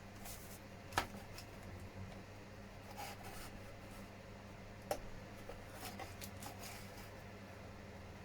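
Small injection-moulded plastic model parts being handled and fitted, with two sharp clicks, about a second in and near five seconds, and softer ticks and rustles between them.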